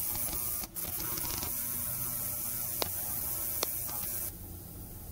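Small ultrasonic cleaner running with a bike cassette in its degreaser-and-water bath: a steady hum with a hiss over it. There are two sharp ticks in the middle, and the hiss drops away about four seconds in.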